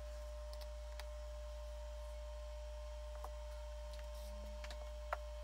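Steady electrical hum with a thin constant whine, and a few faint scattered clicks and taps; the sharpest click comes near the end.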